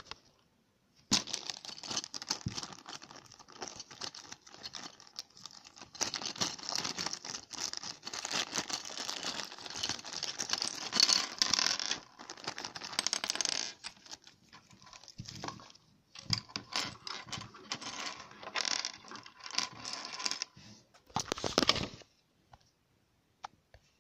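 A thin clear plastic bag crinkling and tearing as it is handled and opened, with the small plastic Lego parts inside clicking against each other. The noise comes in long stretches with short breaks, then stops about two seconds before the end, leaving a couple of light clicks.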